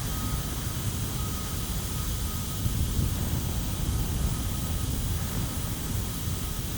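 Steady low rumble of aircraft and nearby factory noise around an outdoor campfire, with a faint high thin whine that comes and goes.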